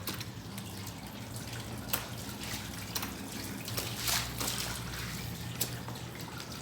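Water from a garden hose splashing and trickling on the ground, with scattered drips and splatters, over a steady low hum.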